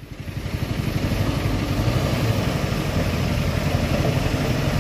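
Isuzu Elf light truck's diesel engine pulling under load as the laden truck creeps forward through slippery mud. It rises over the first second, then holds steady.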